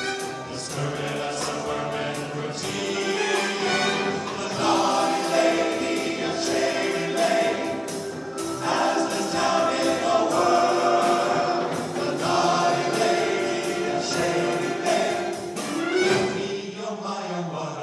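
Men's vocal ensemble singing a song in harmony, amplified through handheld microphones.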